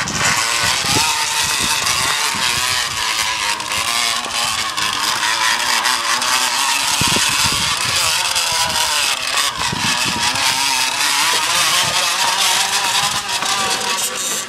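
Drink can pressed against a spinning bicycle tyre, buzzing and rattling continuously in a rough, motorbike-like rasp. Its pitch wavers up and down with the wheel's speed.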